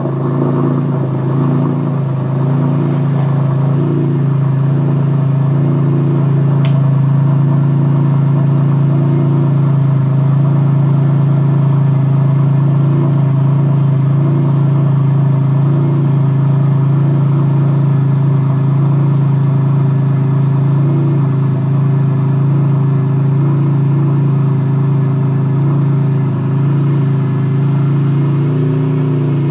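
BMW E46 M3's S54 straight-six idling steadily through a Trek titanium exhaust, with a rumble from the tailpipe while the engine is still cold from its start, heard close to the exhaust tip inside a garage.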